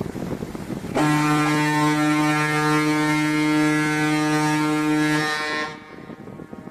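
A cargo ship's deep horn sounding one long blast of about four and a half seconds, starting suddenly a second in. Wind noise on the microphone before and after it.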